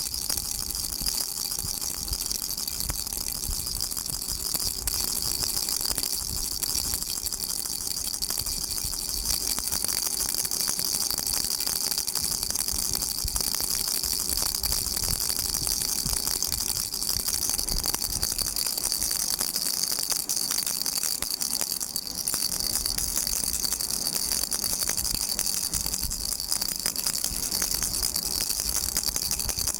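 Baby rattle shaken continuously, a dense, high-pitched stream of rapid rattling clicks that keeps going without a break.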